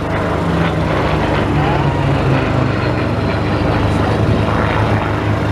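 Supermarine Spitfire's V12 piston engine running steadily as the fighter flies a display pass overhead.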